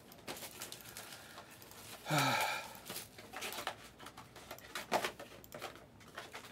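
Light clicks and taps as card boxes are handled and a computer mouse is clicked, with a man's short wordless vocal sound, falling in pitch, about two seconds in.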